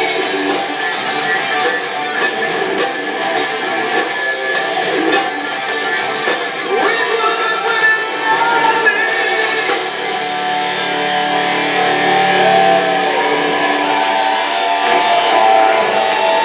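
Live hard rock band playing loud, with distorted electric guitars and drums. Sharp drum strikes keep a steady beat of about two a second, then stop about ten seconds in, leaving held, bending guitar notes.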